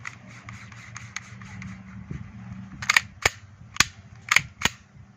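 Umarex Glock 17 replica gas pistol firing about five sharp shots in quick succession, beginning about three seconds in.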